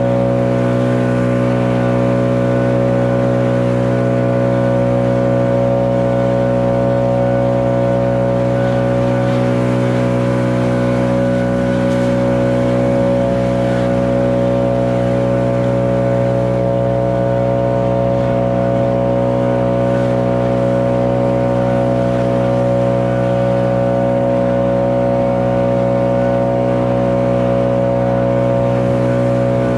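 Stihl BR 800 Magnum backpack blower's two-stroke engine running at a steady, unchanging speed, with the rush of its air stream blowing wet snow.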